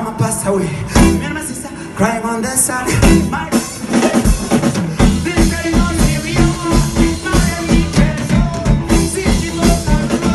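Live reggae band playing with a steady beat: drum kit, electric guitars and keyboard, with singing over the top.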